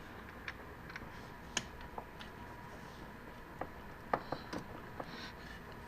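Scattered light metallic clicks and taps as the bolt and nut holding a brake-line bracket on a motorcycle's front fork are taken off. The sharpest clicks come about a second and a half in and a cluster around four seconds in.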